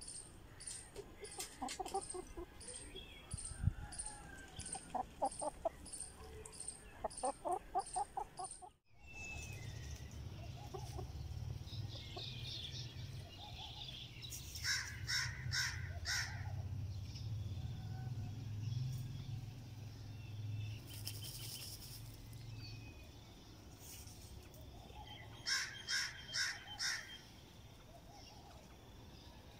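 Outdoor ambience around chickens dust bathing in dry dirt. For the first third an insect chirps steadily about twice a second, along with a few soft bird sounds. After a brief drop-out there is a low rumble, and twice there is a short run of quick repeated bird calls.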